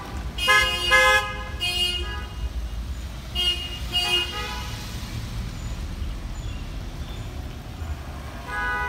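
Car horns honking in short beeps from parade cars rolling past: three quick honks early, then two more about three and a half seconds in, over a low rumble of slow traffic.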